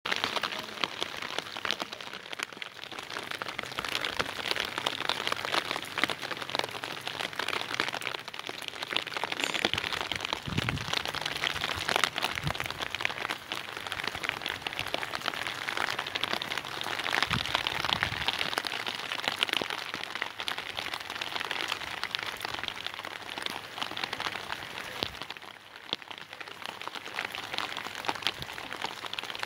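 Heavy rain falling steadily: a dense, even hiss full of countless tiny drop ticks.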